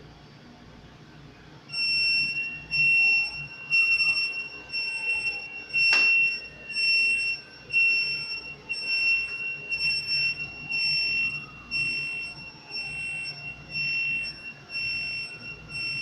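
Fire alarm sounding during a fire detection system test. A steady high-pitched tone starts about two seconds in and swells in loudness about once a second. A single sharp click comes about six seconds in.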